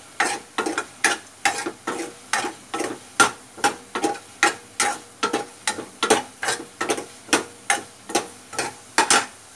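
Metal ladle stirring popcorn into a tomato mixture in a stainless steel kadai, scraping and clinking against the pan in a steady rhythm of about two strokes a second.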